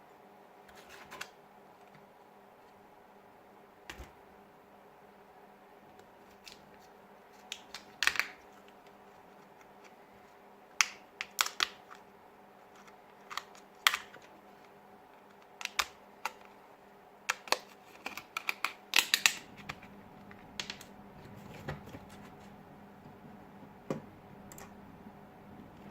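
Irregular sharp clicks and light taps of a smartphone and small hand tools being handled on a work surface, with the loudest clusters in the middle, over a faint steady electrical hum.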